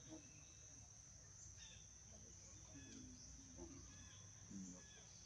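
Near silence: the steady, high-pitched drone of insects, with a few faint short chirps.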